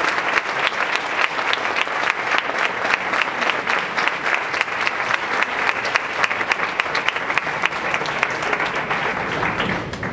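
Audience applauding with many hands clapping, steady throughout and dying down right at the end.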